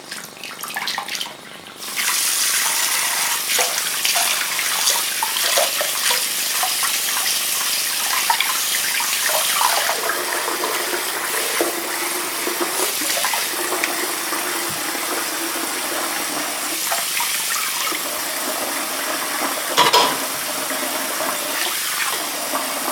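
Water running from a tap into a sink, starting about two seconds in, with a brief knock near the end.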